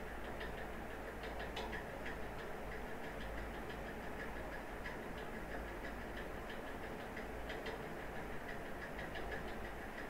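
Computer keyboard keys clicking in irregular short runs as text is typed, over a steady background hiss and low hum.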